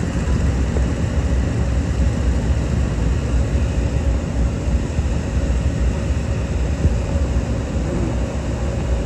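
Twin radial engines of a Beechcraft 18 (Twin Beech) running at low power as it rolls along the runway: a steady low rumble.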